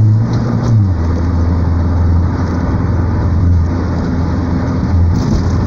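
Car engine and exhaust running while driving, heard from inside the cabin. A steady low engine note breaks up less than a second in and turns into a rougher, uneven low rumble.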